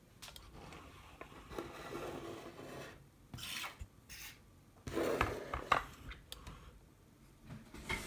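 Handling noise: scrapes, rubs and a few sharp clicks, in scattered short bursts, as a lock and its tools are moved about on a work surface.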